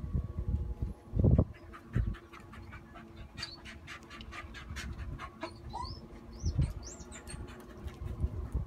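A dog panting in quick, even breaths, about four a second, then a few short bird chirps.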